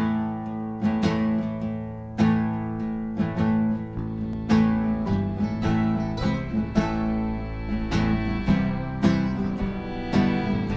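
Music: the instrumental opening of a folk-rock song, led by strummed acoustic guitar over held low notes.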